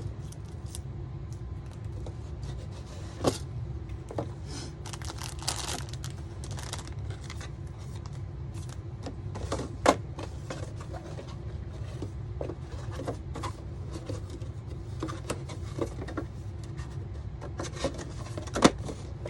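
Scattered clicks, taps and light rustling of small model-kit pieces being handled on a table, over a steady low hum. The sharpest clicks come about ten seconds in and near the end.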